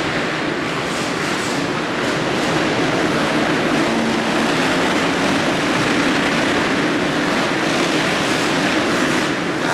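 Several motocross bikes racing together on an indoor arena track, their engines blending into one loud, steady drone that echoes around the hall.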